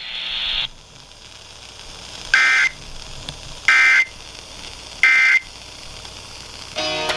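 Emergency Alert System end-of-message data bursts on a NOAA Weather Radio broadcast: three short, identical bursts of two-tone digital data squeal about 1.4 seconds apart, signalling that the warning message has ended. A short buzzy tone follows near the end.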